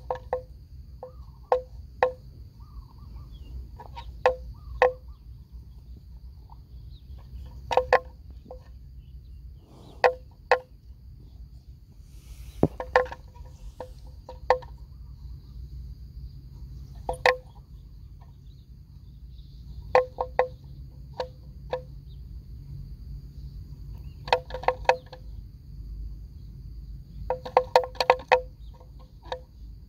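Hollow wooden bell on a grazing water buffalo clonking irregularly: single knocks and quick runs of several as the animal moves its head. A faint steady insect whine runs underneath.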